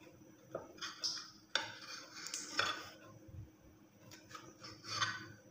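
Kitchen knife sawing through a slice of sandwich bread in several short scratchy strokes, the blade scraping against the ceramic plate beneath.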